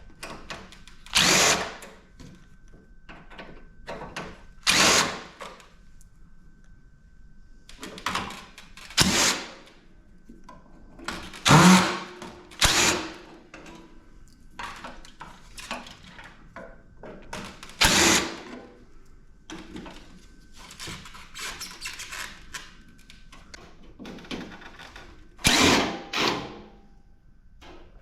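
Power drill spinning in short bursts of under a second, backing screws out of a PTAC air-conditioner's sheet-metal casing, about eight times, with smaller knocks between.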